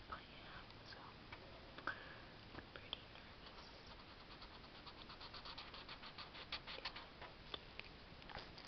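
Felt-tip marker scratching faintly on paper, with a quick run of short back-and-forth colouring strokes in the second half.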